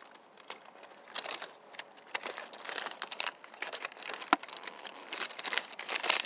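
Irregular crinkling and rustling of plastic and fabric handled close to the microphone, with one sharp click about four seconds in.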